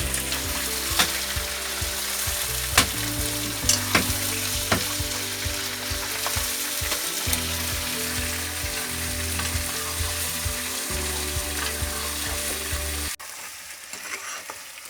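Chicken curry frying and sizzling in a pot as it is stirred, with a spoon clicking against the pot several times in the first five seconds. The sizzle cuts off suddenly near the end.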